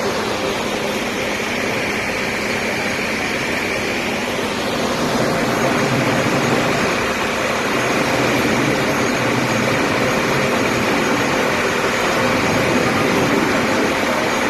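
Fire trucks' engines running steadily, a loud even rumble with a faint steady hum, growing a little louder about five seconds in.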